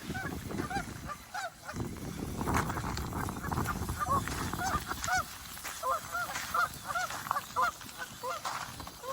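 Bird calls: short honking calls repeated several times a second, over a low rumbling noise.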